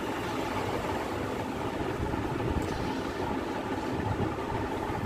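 Steady low mechanical rumble with a faint hiss, running evenly throughout with no distinct knocks or clicks.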